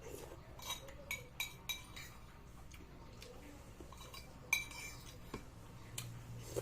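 Spoon and fork clinking against a bowl while eating noodle soup: several light, separate clinks with a short ringing tone, the loudest about four and a half seconds in.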